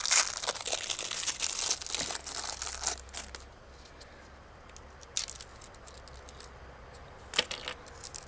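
Crinkly plastic wrapper of a fortune cookie being torn open and crumpled, dense crackling for about three seconds, then quieter with two sharp cracks as the cookie is broken.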